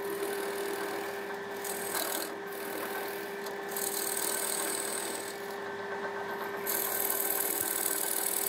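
Wood lathe running with a steady hum while a hand-held turning tool cuts into the spinning plum-wood bowl blank, hollowing its inside. The hiss of the cut comes and goes as the tool is pushed in and eased off.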